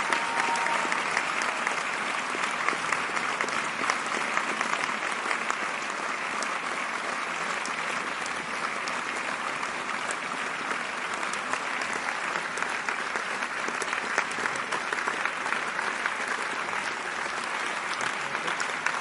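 Large theater audience applauding: dense, steady clapping of many hands with a faint murmur of voices underneath.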